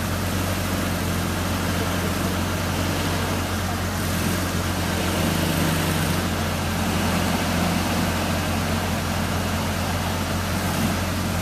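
1985 Toyota 4x4 pickup's engine running steadily at low revs under load as the truck crawls through deep mud, the revs rising slightly about halfway through.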